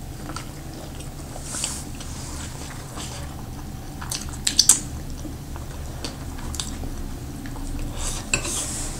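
Close-up eating sounds: chewing and mouth smacks on barbecued pork ribs, chicken wings and momo, with a few sharp clicks. The clicks come loudest in a quick cluster about four and a half seconds in and again near the end, over a steady low hum.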